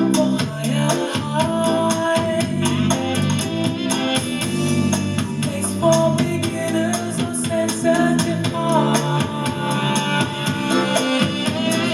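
Music played through the LG QNED80A TV's built-in speakers: a song with a drum kit keeping a steady beat under sustained melody lines, with no vocals.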